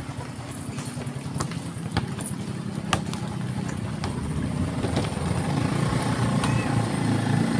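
Vehicle engine and road noise while driving on a rough unpaved road: a steady low rumble that slowly grows louder, with a few sharp clicks.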